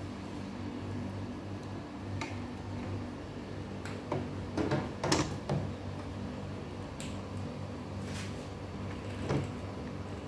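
A steady low mechanical hum, with a few light knocks and clacks of household handling, bunched about four to five and a half seconds in and again near the end.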